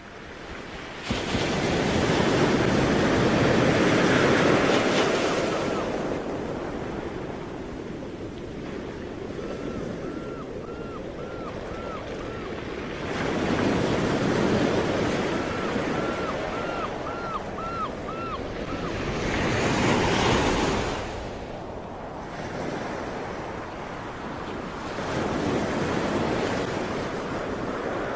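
Ocean surf on a beach: waves breaking and washing up the sand, the rush swelling and falling four times, loudest about a second in. Two short runs of small repeated high calls come between the swells.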